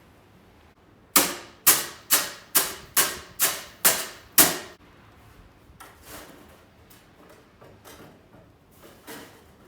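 A quick run of eight sharp knocks, about two a second, each ringing briefly, followed by fainter scattered knocks.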